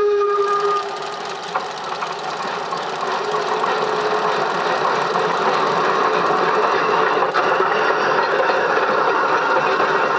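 Narrow-gauge steam locomotive of class 99.77: its whistle blows a steady note that stops about a second in, followed by the steady noise of the locomotive running.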